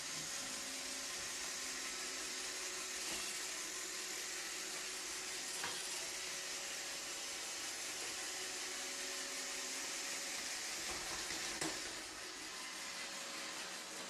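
iRobot Roomba 761 robot vacuum running steadily, a constant hiss of its vacuum fan and brushes with faint steady motor hum underneath and an occasional small click. It gets slightly quieter near the end.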